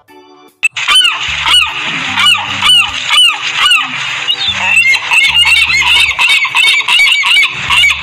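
A flock of gulls calling, many short overlapping squawks that rise and fall, starting about half a second in, over soft background music.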